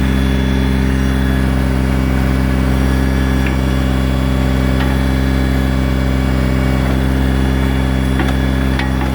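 Kubota BX2200 compact tractor's small three-cylinder diesel engine running at a steady speed.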